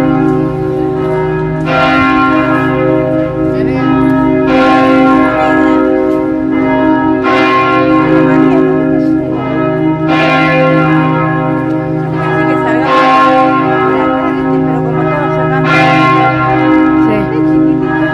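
Church bells ringing, a fresh strike about every three seconds over the long, sustained hum of the bells.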